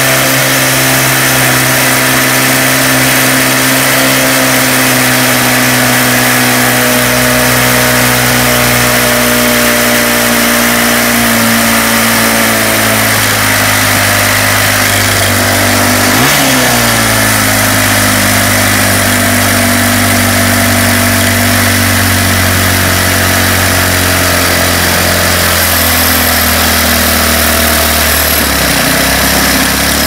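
Craftsman Speed Start 29cc four-stroke string trimmer engine running at a fast idle while its idle speed is turned down. The pitch sinks gradually, dips sharply and recovers once about halfway through, then holds steady at a lower speed.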